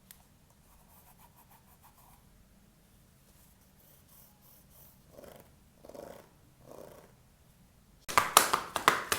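Hands handling new Crocs and their packaging: three soft rubbing swishes about a second apart, then loud, rapid crinkling and scratching near the end.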